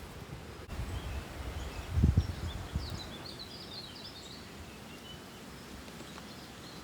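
Small birds chirping and twittering, busiest a few seconds in. Low rumbling on the microphone about one to three seconds in, loudest about two seconds in.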